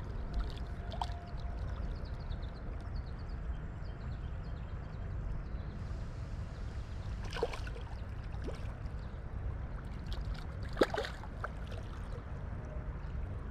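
Carp splashing in shallow water at the bank: two sharp splashes, about seven and a half seconds in and again near eleven seconds, the second louder, over a steady low rumble.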